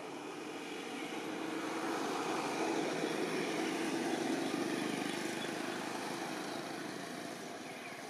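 A motor vehicle passing by: engine and road noise with a low hum that builds to a peak about halfway through and then fades away.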